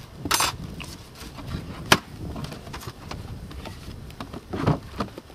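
Beehive covers being put on: a plywood inner cover and a lid scrape against the wooden hive box, with one sharp knock about two seconds in and a second scrape and a lighter knock near the end.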